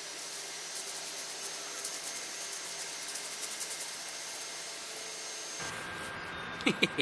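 Wood fire in a Dakota fire hole, smothered under a stone slab, hissing steadily with light crackles in the first few seconds. The sound changes abruptly about five and a half seconds in.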